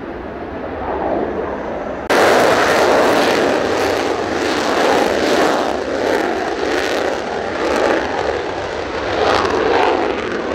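Mitsubishi F-2's F110 turbofan jet noise in afterburner. It is a steady, more distant jet sound for the first two seconds. Then it suddenly becomes much louder, with a ragged crackle running through it.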